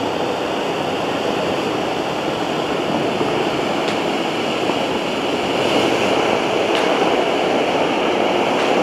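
Ground fountain firework spraying sparks with a steady hiss, slightly louder after about five seconds, with a few faint crackles.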